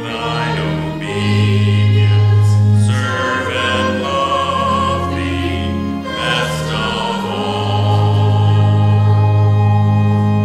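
Church congregation singing a hymn with instrumental accompaniment, holding long notes.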